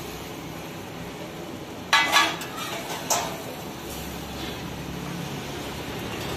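Metal spatula scraping and clattering on a large flat griddle (tawa) as an egg paratha for a roll is turned and pressed. A few sharp clatters come about two seconds in and one more a second later, over a steady background hiss.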